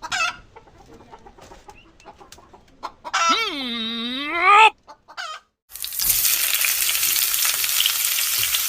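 A rooster crows once about three seconds in, one long call that bends up at the end. A couple of seconds later, loud, steady sizzling of food frying starts.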